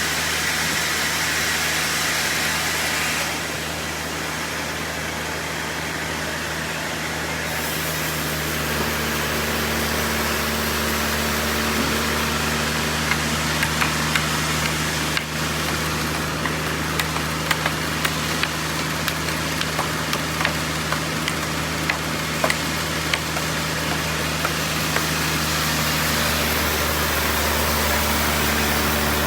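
Sawmill machinery running steadily while sawing a trembesi (rain tree) log, a constant engine-like drone with a few steady tones. The sound dips slightly and shifts in pitch a few seconds in, and many short sharp ticks scatter through the middle stretch.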